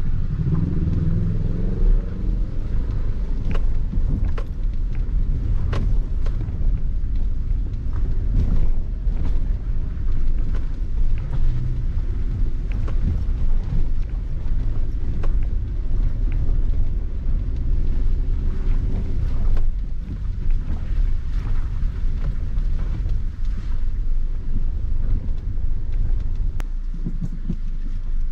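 Maruti Suzuki Ignis heard from inside the cabin, crawling in first gear over a rough, rocky dirt road. A low engine and road rumble runs steadily, broken by frequent knocks and rattles as the car jolts over stones.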